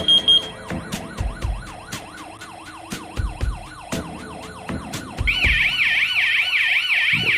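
Electronic fire alarm sounder warbling, its tone sweeping up and down several times a second. About five seconds in, a second, higher-pitched and louder warble joins it. Irregular clicks and knocks sound throughout.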